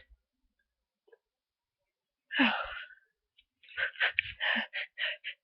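A person in a sneezing fit from a bad cold sneezes once, loudly, a little over two seconds in. About a second later comes a fast run of short, catching breaths, the build-up toward the next sneeze.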